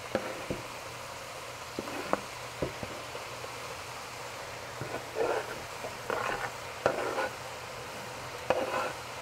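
Cabbage sizzling in oil in a frying pan while a spatula scrapes chopped fresh herbs off a wooden cutting board into the pan and stirs them in. Several sharp clicks of the spatula against pan and board, with short bouts of scraping in the second half.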